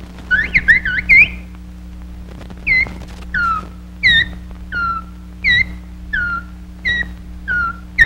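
Cartoon bird voices done as whistled chirps: a quick flurry of rising and falling whistles, then a string of single short falling whistles, about eight of them, spaced under a second apart. A low steady hum from the old film soundtrack runs underneath.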